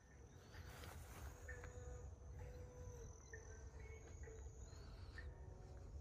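Quiet background with a faint, steady high-pitched insect trill over a low rumble, with a few short faint chirps.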